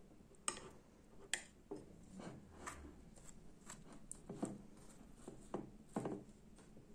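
Table knife spreading softened butter inside a hollowed-out bazlama flatbread: faint scraping of the blade over the bread with scattered light clicks and taps at irregular moments.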